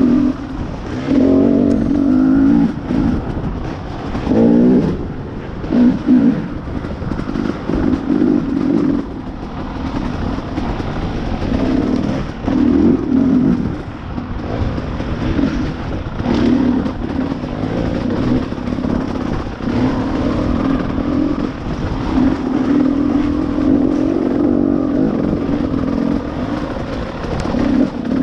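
Two-stroke KTM dirt bike engine being ridden along a trail, revving up and down over and over as the throttle is opened and closed.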